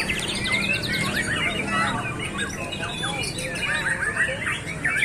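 Several caged white-rumped shamas (murai batu) singing at once: a dense, overlapping chorus of chirps, whistles and quick trills.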